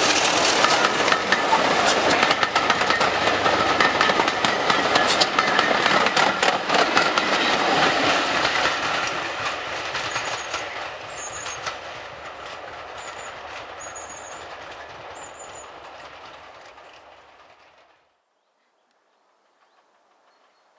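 A Class 33 diesel locomotive and its coaches passing close by: the Sulzer eight-cylinder engine runs and the wheels clatter over the rail joints. The sound fades steadily as the train draws away, then cuts off suddenly near the end.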